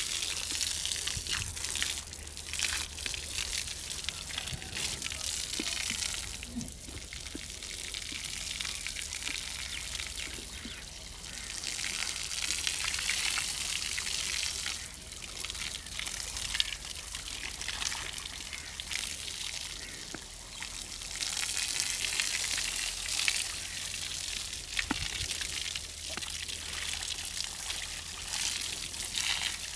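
Jet of water from a hose spraying and splashing onto a buffalo's wet hide, a steady hiss that swells and fades every few seconds as the spray moves over the body.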